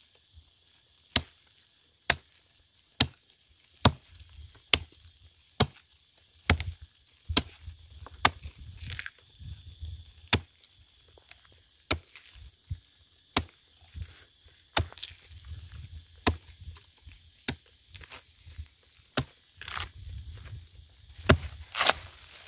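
Hatchet chopping into a dry, fibrous dead stump: sharp blows about one a second, with wood splintering and crackling between strikes near the end.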